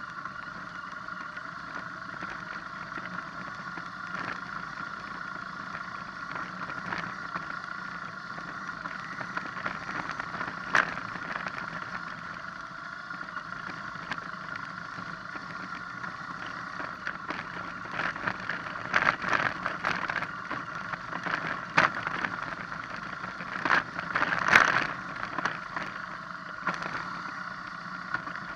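BMW R1200GS flat-twin engine running steadily on a rough, rocky downhill track. Sharp knocks and rattles come as it rolls over loose rock, once about a third of the way in and in a cluster in the latter part.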